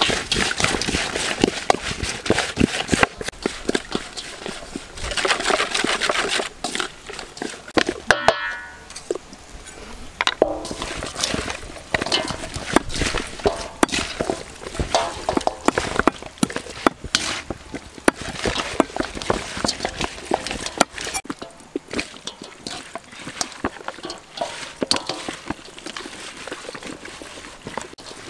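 Hands mixing chopped raw vegetables and seasoning paste in a metal bowl and rubbing them over a whole raw duck: a busy stream of wet squishing, rustling and small clicks against the bowl, dropping away briefly about eight seconds in.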